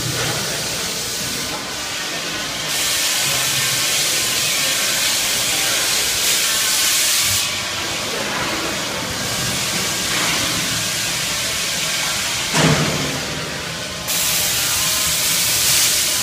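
Cattle slaughter-line machinery: a loud hiss that comes on and cuts out in stretches of a few seconds, over a steady low hum, with one sharp knock about twelve seconds in.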